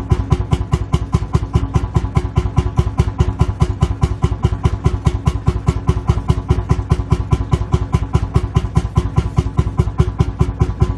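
Lanz Bulldog tractor's single-cylinder two-stroke hot-bulb engine idling, a steady, even knock of about five beats a second.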